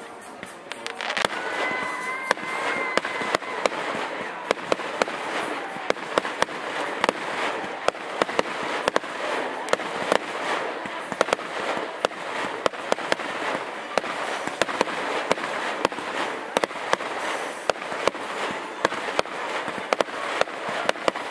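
Fireworks going off: a dense, continuous crackle studded with many sharp pops, starting about a second in.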